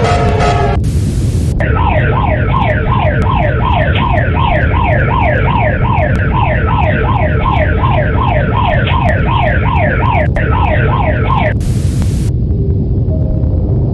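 Electronic emergency alert siren: a rapidly repeating falling tone, about two to three sweeps a second, set between two short bursts of static, over a steady low rumble.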